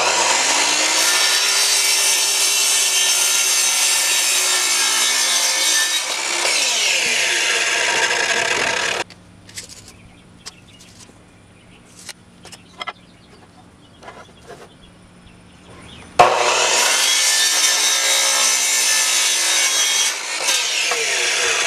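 Sliding miter saw cutting through 2x4 pine lumber twice. Each time the motor starts, the blade runs through the board, and the motor winds down with a falling whine. Between the two cuts there are several quieter seconds with a few light clicks and knocks.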